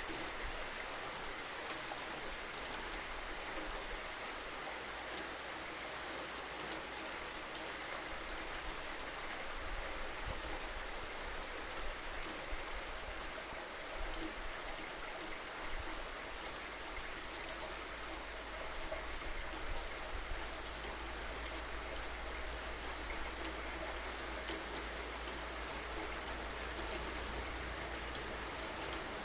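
Steady rain falling, an even hiss with scattered louder drops and a low rumble underneath.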